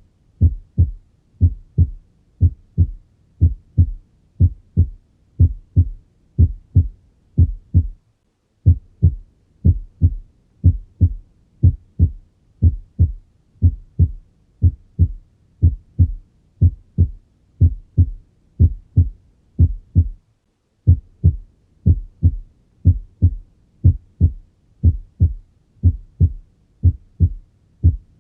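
Normal human heart sounds heard on auscultation: a regular lub-dub rhythm of paired low thumps. The first sound of each pair (S1, the 'lub' of the mitral and tricuspid valves closing at the start of systole) is the louder and longer one, heard as a single sound. The rhythm breaks off briefly twice, about eight seconds in and about twenty seconds in.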